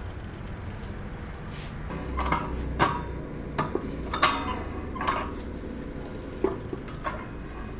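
Metal clanks and clinks from a homemade hand-lever pipe bender as a round steel pipe is forced through it. The clanks are irregular, several of them with a short metallic ring, and they start about two seconds in.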